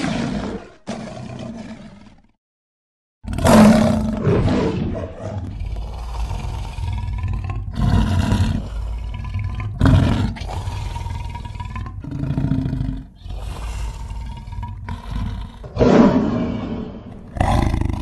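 Composite 'werelion' roar sound effect mixed from lion and other big-cat roars: two short roars, a silent break of about a second, then a long run of overlapping roars over a steady low rumble. The run is loudest at its start and again near the end.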